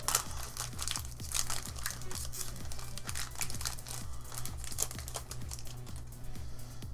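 Foil booster-pack wrapper crinkling and crackling as hands handle it, the crackles thinning out in the last couple of seconds, over background music with a steady beat.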